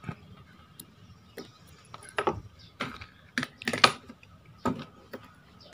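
Small metal clicks and clatter from a spinning reel being taken apart: a small screwdriver, screws, washers and a nut handled and set down on a table, in a series of separate sharp ticks, the loudest a little under four seconds in.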